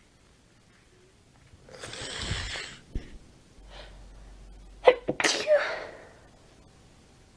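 A woman sneezing from a cat allergy, her nose tickly and stuffy. A long noisy rush of breath comes first, then a sharp sneeze about five seconds in.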